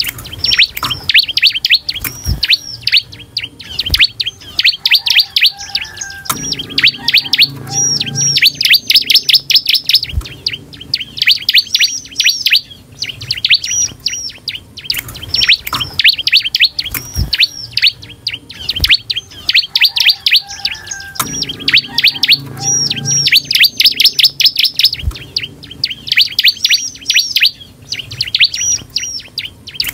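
Bar-winged prinia (ciblek) singing in full song: fast, high strings of repeated hooked chirps in phrases of a few seconds with short gaps between, the kind of song used as a lure to make other ciblek answer. A few sharp taps sound among the phrases.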